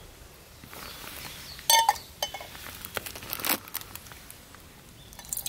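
A few short knocks and clicks over a quiet outdoor background, the loudest a brief ringing clink about two seconds in.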